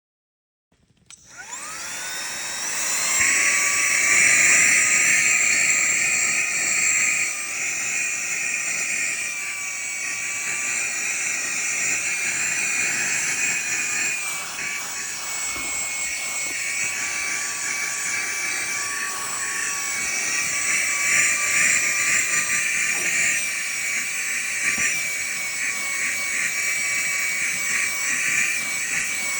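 Cordless handheld brushless vacuum cleaner switched on about a second in, spinning up into a loud, steady high-pitched whine. The pitch shifts slightly now and then as it runs.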